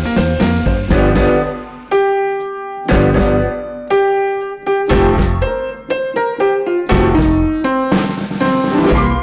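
Background music: a piano melody over bass and drums, with a low beat about once a second.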